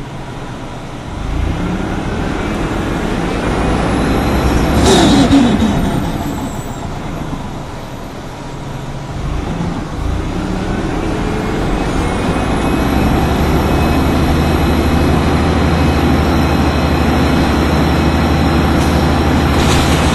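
Orion V CNG bus's Detroit Diesel Series 50G natural-gas engine pulling under load through its Allison B-400R automatic. The engine note climbs over the first few seconds to a brief loud burst about five seconds in, eases off, then climbs again and holds steady.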